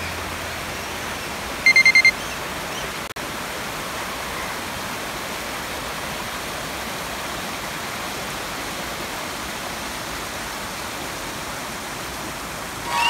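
Steady rush of a shallow river running over rocks and small rapids. About two seconds in, a quick run of four high electronic beeps.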